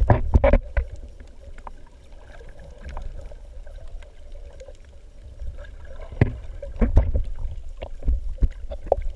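Underwater sound through a GoPro's housing: a muffled low rumble of moving water, with scattered clicks and knocks that bunch up at the start and again about six to seven seconds in, over a faint steady hum.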